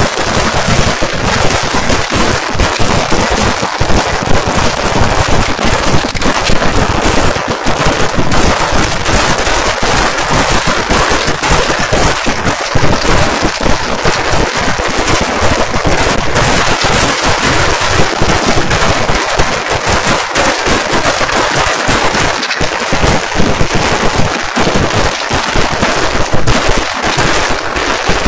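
Fireworks barrage: firecrackers bursting in rapid, unbroken succession, a loud continuous crackle of reports with no pause.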